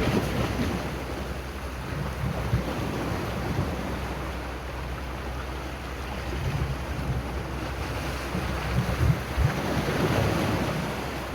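Sea waves washing in, swelling near the start and again about ten seconds in, with wind buffeting the microphone in low rumbling gusts.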